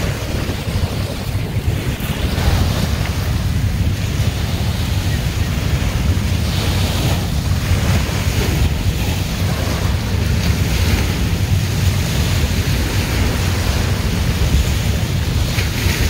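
Wind buffeting the microphone with a steady low rumble, over small waves washing onto a sandy beach, which swell a little about seven seconds in and near the end.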